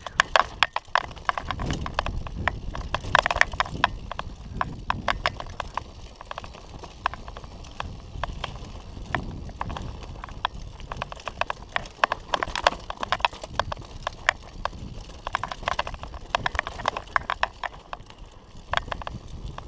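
Mountain bike clattering and rattling down a rocky dirt trail: dense, irregular clicks and knocks from the bike and tyres on stones and gravel over a low rumble.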